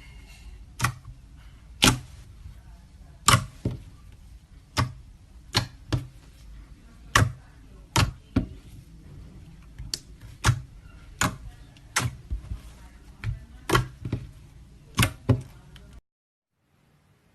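Slime being pressed and squeezed, making sharp popping clicks as trapped air bursts, about one a second. The pops stop suddenly near the end.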